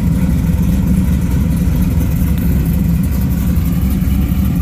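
Pontiac Firebird engine idling steadily, a loud, low, even rumble with no revving.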